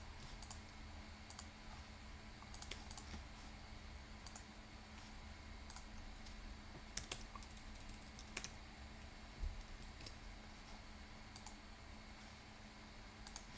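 Computer keyboard and mouse clicking: scattered, irregular key taps and clicks while settings are typed in, over a faint steady hum.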